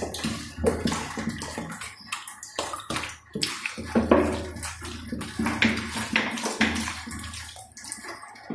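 Chopped vegetables being washed by hand in a steel bowl of water: irregular splashing and sloshing.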